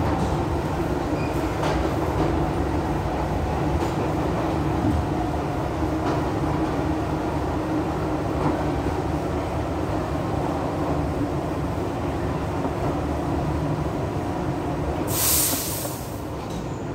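Kawasaki R62 subway car with Bombardier groupswitch ECAM propulsion and GE 1257E1 traction motors running steadily, a continuous rumble of wheels on rail with motor hum. Near the end comes a brief loud hiss.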